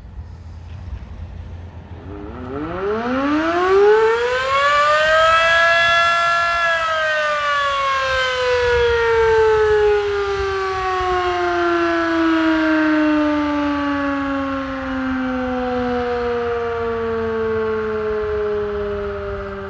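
Champion outdoor warning siren winding up from about two seconds in, reaching full pitch a few seconds later, then winding down slowly without holding at the top. The uploader hears a contactor problem in the wind-up, and the blast is cut short of a full noon signal.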